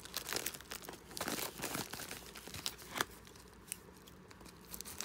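A package being opened by hand: packaging crinkling and tearing in irregular bursts, with one sharper snap about three seconds in.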